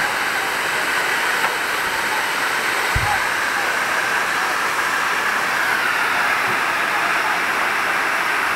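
Steady rushing noise of a large blaze burning through wooden shanty houses, with a single low thump about three seconds in.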